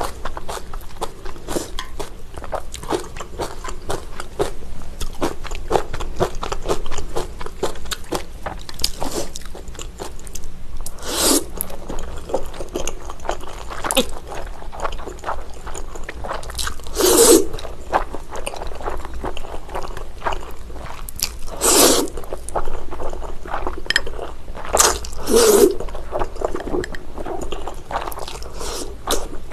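Close-miked eating of sauce-coated flat glass noodles: a steady run of small wet chewing clicks, broken by about five louder noodle slurps in the second half.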